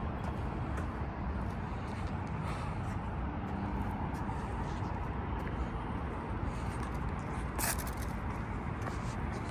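Steady low outdoor background rumble, with one short sharp click about three quarters of the way through.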